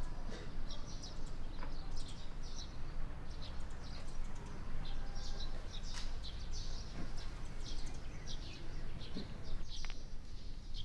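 Small birds chirping over and over, short high calls repeating throughout, over a steady low background rumble.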